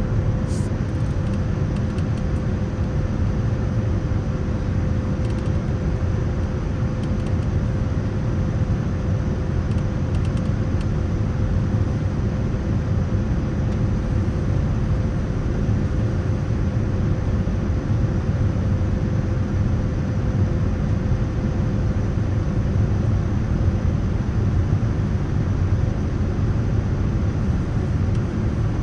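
Steady, unbroken rumble of a Boeing 787-9 in flight, engine and airflow noise as heard inside the passenger cabin, with a faint steady hum that fades out about 22 seconds in.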